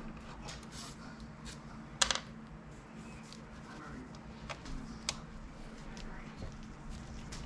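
Scattered light clicks and taps of an Allen wrench and small screws being worked out of the base of a Photon Mono resin printer, with one sharp click about two seconds in, over a steady low hum.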